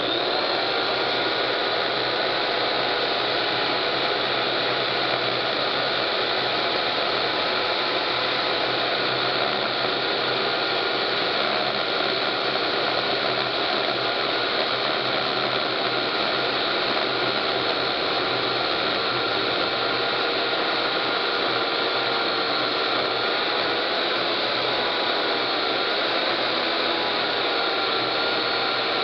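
Chainsaw starting up suddenly and running at a steady pitch as it saws through a large piece of firewood, the pitch wavering slightly about three quarters of the way through.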